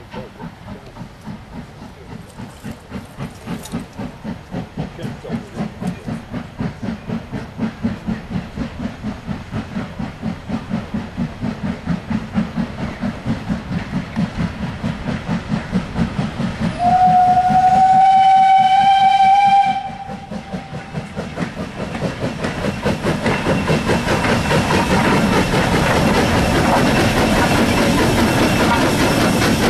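Steam tank locomotive working a train towards the listener, its chimney exhaust beating about twice a second and growing steadily louder. About seventeen seconds in, a steam whistle sounds one blast of about three seconds. After that the engine and its wagons pass close by, a loud rumble of wheels with hiss of steam.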